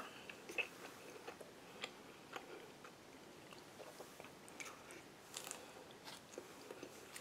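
Faint close-up mouth sounds of a person chewing a bite of chicken quesadilla: soft, irregular clicks with pauses between them.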